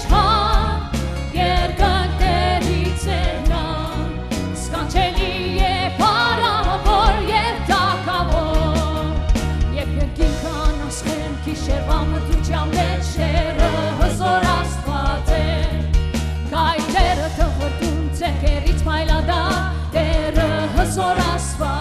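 A live church worship band performing a song in Armenian: a woman singing lead with other voices joining, over keyboard and electric guitars with a steady beat.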